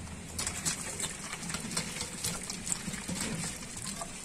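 Green bamboo tube being scrubbed wet by hand to clean it: quick, irregular scraping and rubbing strokes.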